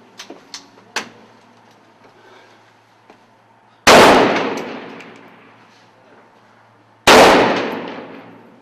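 Two loud rifle shots fired close by, about three seconds apart, each echoing and dying away over more than a second. A few light clicks and knocks come just before them, in the first second.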